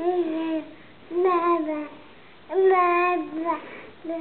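Baby boy babbling in drawn-out, sing-song 'mah' sounds, about four held calls with short pauses between, each sliding a little lower at the end.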